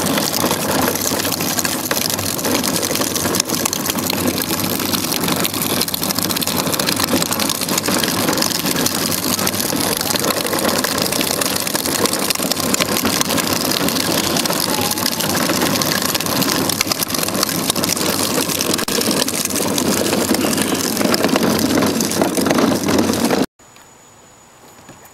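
Hard plastic wheels of a child's ride-on push car rolling over a concrete sidewalk: a loud, steady rolling rumble with fine rattling. It cuts off suddenly about 23 seconds in, leaving only faint outdoor sounds.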